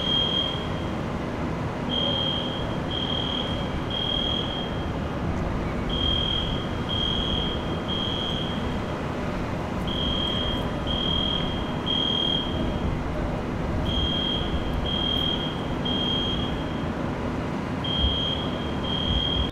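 Building fire alarm sounding a high-pitched beep in the temporal-three pattern: three beeps about a second apart, a pause, then three more, repeating. This is the standard evacuation signal, over a steady low rumble.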